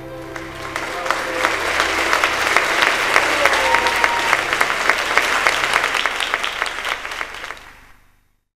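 The last piano and violin notes die away as an audience breaks into applause, which swells over a couple of seconds and holds. The applause fades out to silence near the end.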